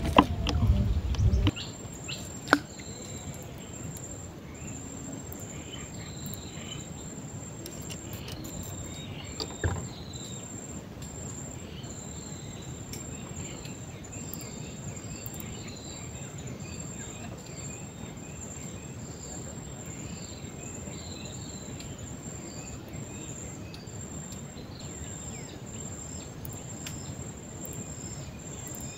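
Insects trilling steadily on one high note, with scattered short chirps. It opens with a second and a half of loud low rumbling noise, and there is a sharp click at about two and a half seconds and a knock near ten seconds.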